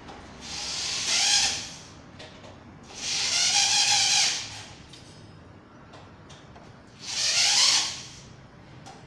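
Electric drill driving screws into a wooden bed frame in three bursts, the second the longest, the motor's whine rising as it spins up.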